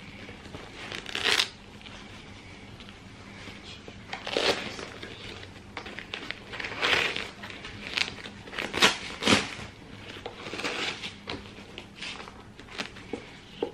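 Fabric rustling and short rasping pulls as an orthopaedic walking boot's padded liner and straps are handled and loosened, in about eight to ten separate bursts.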